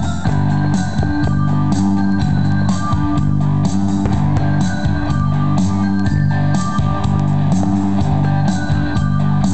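Music with guitars and bass and a steady beat.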